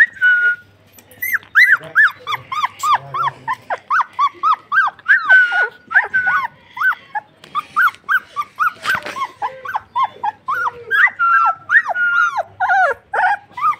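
Labrador puppies whining and yelping over and over: short cries that rise and fall in pitch, a few each second, with a few longer held whines.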